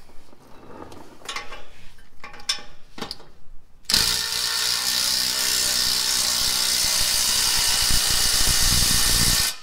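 Cordless impact wrench hammering loudly for about five seconds as it drives a nut down on an exhaust clamp, starting abruptly about four seconds in and cutting off sharply. Before it, a few light clicks and knocks.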